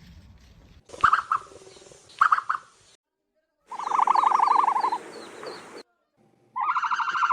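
Series of bird calls spliced together: two short calls, then a rapid pulsing trill lasting about a second, then another pulsing trill starting near the end. Each call cuts in and out abruptly.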